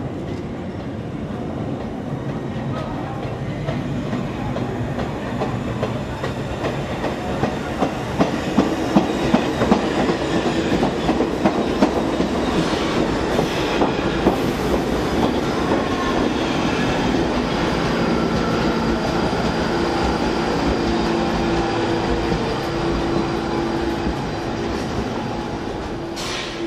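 New York City subway train running along the track, its wheels clicking rapidly over the rail joints, loudest about a third of the way in. A steady low hum runs under it through the second half.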